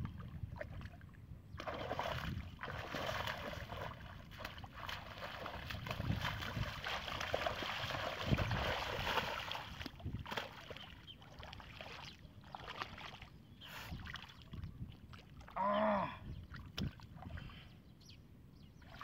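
Hands splashing and sloshing in shallow floodwater while groping for fish, heaviest in the first half, then scattered smaller splashes. Near the end a brief, loud voice-like call stands out.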